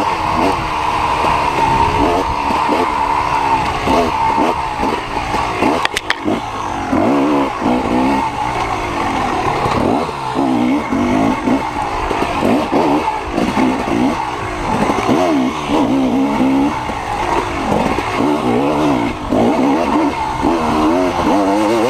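Dirt bike engine ridden hard, its pitch rising and falling again and again with the throttle. A brief clatter of sharp knocks comes about six seconds in.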